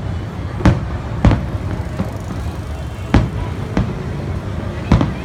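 Aerial fireworks shells bursting high overhead, about five booms at uneven intervals over a steady low rumble.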